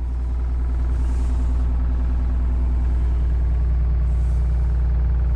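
Steady low engine rumble with a constant hum, heard inside the motorhome's cabin: an engine running evenly at idle.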